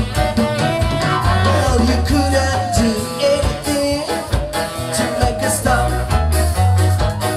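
Ska band playing live: electric guitar, bass, drums and keyboards, with a gliding lead melody over a steady beat.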